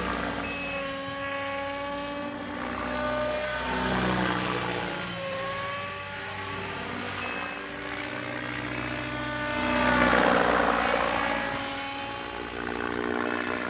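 Electric Mikado Logo 690 RC helicopter running on repaired VTX 697 main blades: a steady motor and rotor whine, with swells of louder blade noise about four and ten seconds in.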